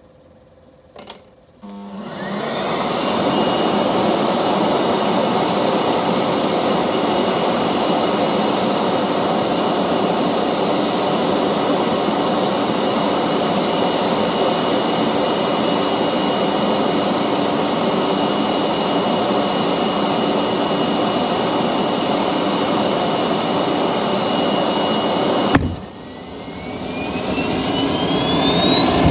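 Homemade gas turbine built from a Holset WH2D turbocharger: a brief pop about a second in, then it comes up to a loud, steady rushing run with a high whine. Near the end the sound drops suddenly, and a whine then climbs steadily in pitch as the turbine spools up again.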